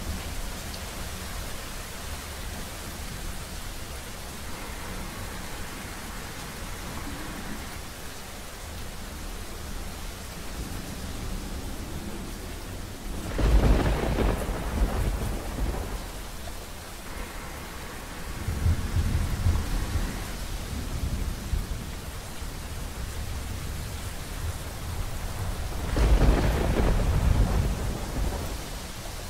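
Steady heavy rain with thunder: a loud clap rolling into a rumble about halfway through, a softer rumble a few seconds later, and another loud rolling clap near the end.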